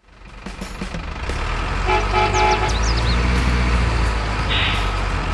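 Deep truck-engine rumble that swells up over the first couple of seconds and then runs steadily, with a short horn toot about two seconds in.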